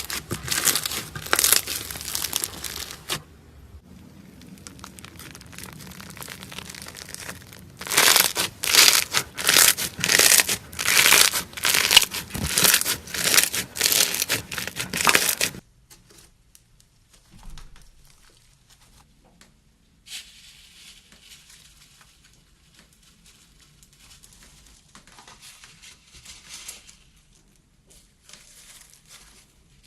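Slime being squished and pulled by hand, making dense crackling and popping. The sound comes in separate stretches that cut abruptly from one to the next: loud crackling at the start and again from about 8 to 15 seconds in, and fainter crackling in between and afterwards.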